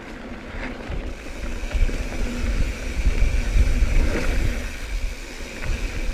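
Wind buffeting the microphone in uneven gusts, with a steady high hiss that sets in about a second in.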